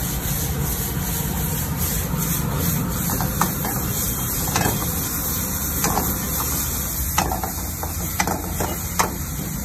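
Chilli chicken frying in a wok over a high-flame gas burner, a steady rushing and hissing, with a metal ladle knocking against the wok about once a second from about three seconds in.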